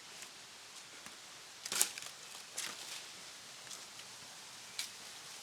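Footsteps and brush rustling on a leafy forest trail: a few scattered, irregular crunches, the loudest about two seconds in.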